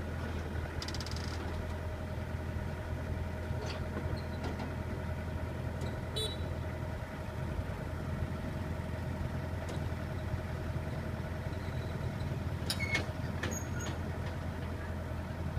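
Vehicle engine idling steadily, a low even hum, with a few light clicks, several of them close together near the end.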